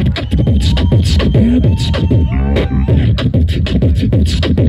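Live beatboxing into a microphone: a fast, steady beat of deep kick-drum thuds and crisp snare and hi-hat clicks made with the mouth, with short pitched, warbling vocal sounds woven in around the middle.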